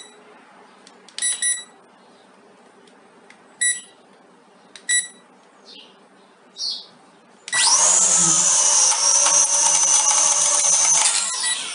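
Several short high electronic beeps, then about seven and a half seconds in the Visuo XS809W mini quadcopter's propeller motors spin up suddenly into a loud, high-pitched whine and buzz as it lifts off, easing off slightly near the end.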